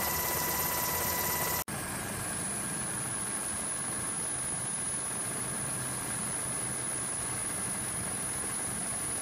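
Steady aircraft engine drone, as heard aboard the aircraft filming from the air. It cuts out for an instant about one and a half seconds in, then carries on much the same.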